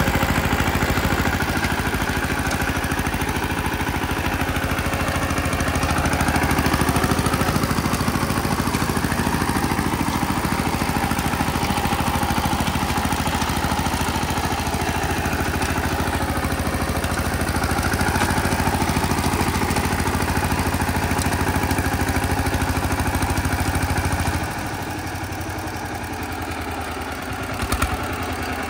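VST Shakti 130 DI power tiller's single-cylinder diesel engine running steadily with an even chugging beat. About 24 seconds in, the low engine note drops away and the sound becomes quieter.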